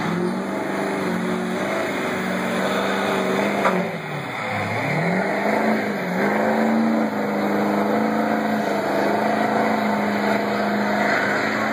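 Modified stock pulling truck's engine running at high revs under full load as it drags the pulling sled. About four and a half seconds in, the revs sag sharply, then climb back and hold steady to the end.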